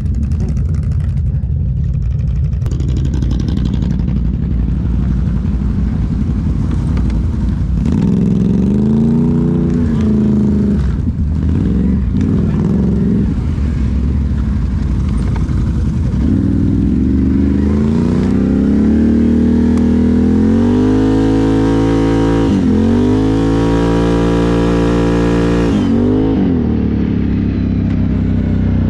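Can-Am ATV engine running under a steady drone, with the throttle blipped twice around eight to twelve seconds in. From about sixteen seconds the revs climb and are held high for several seconds, dip once, then fall back to a lower drone.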